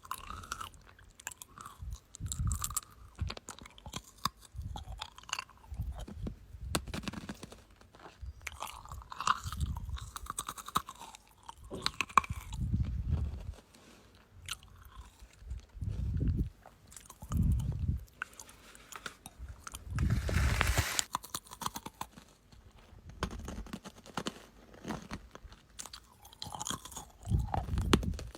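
Close-miked ASMR crunching and chewing sounds, coming in irregular bursts a second or two apart, each a cluster of crisp clicks over low thuds.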